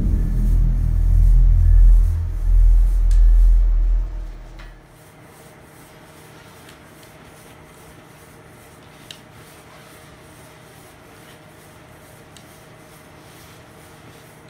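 Time-machine sound effect: a falling sweep in pitch runs down into a heavy, pulsing low rumble that stops about four and a half seconds in. After that there is only a faint steady hum of room tone, with a single click near the middle.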